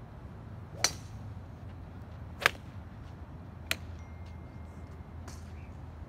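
Golf clubs striking balls: three sharp clicks about a second and a half apart, the second the loudest, over a steady low hum.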